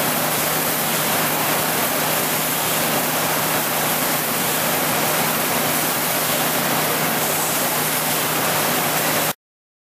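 ECH Will paper sheeter running with several paper webs feeding over its rollers: a steady, dense rushing noise with a faint low hum, cutting off suddenly near the end.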